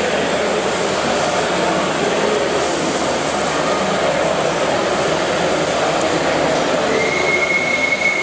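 Turbine-driven gauge 1 live-steam model locomotive of the LMS Turbomotive running along the track: a steady rushing noise from its steam turbine and wheels on the rails. A thin, steady high whine joins in about seven seconds in.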